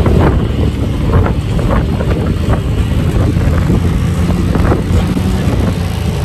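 UTV (side-by-side) engine running while driving on a rough dirt track, with wind buffeting the microphone and frequent knocks and rattles from the bumps.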